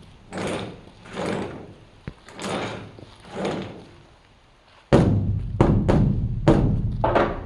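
Large Buddhist temple dharma drum (beopgo) played with two sticks: softer strokes that swell and fade about once a second, a short lull, then loud, sharp, deep strikes in quick succession from about five seconds in.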